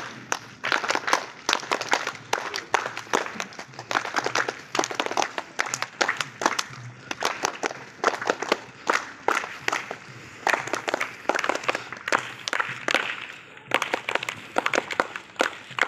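Scattered hand clapping from a group of people: many sharp, irregular claps, several a second, without a break.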